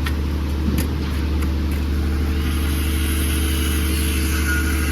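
Heavy diesel engine of a concrete pump truck running steadily during a concrete pour, with a single click about a second in and a hiss joining about halfway through.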